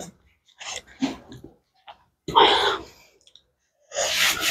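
Close-miked chewing of a mouthful of boiled greens and rice, heard as several separate bursts of mouth sounds, then a rubbing rustle near the end as a soft boiled leaf is handled.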